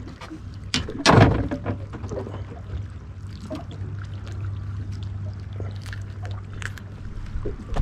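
Water lapping and sloshing against a small boat's hull over a steady low rumble, with small clicks and knocks from handling a caught sheepshead and fishing gear, and one louder knock about a second in.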